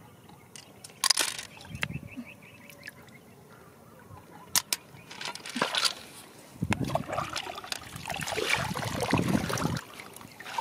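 Shallow river water sloshing and splashing, with a few sharp knocks in the first half and a louder, rougher stretch of sloshing in the second half.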